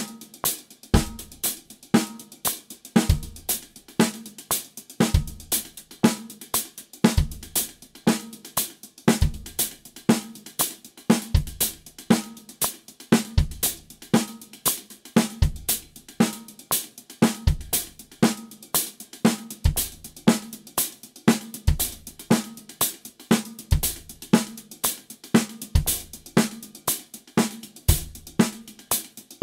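Drum kit playing a steady groove: hand-to-hand sixteenth notes on the hi-hat, accented on each beat, a snare backbeat on two and four, and a single bass drum stroke about every two seconds. The bass drum note is placed on a different sixteenth of the bar in each exercise, a permutation study.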